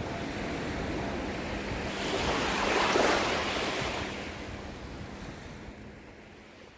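Gentle ocean waves washing onto a beach, one wave swelling and breaking about three seconds in. The sound then fades away gradually near the end.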